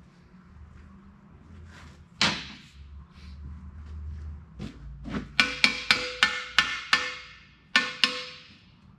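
Hammer blows on the steel parts of an Eaton 13-speed transmission's auxiliary section: one hard hit, then about three seconds later a run of about seven quick taps at roughly three a second, and two more near the end, each leaving a ringing metallic tone.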